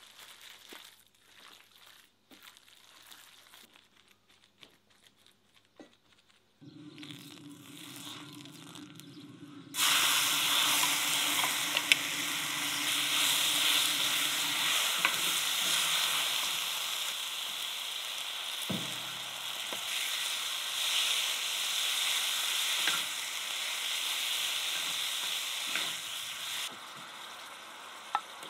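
Red-pepper-marinated pork tipped onto a hot cast-iron cauldron-lid griddle starts sizzling loudly and suddenly about a third of the way in, and keeps sizzling steadily while it is stir-fried with wooden spatulas, with an odd knock of spatula on iron. The sizzle drops sharply a couple of seconds before the end.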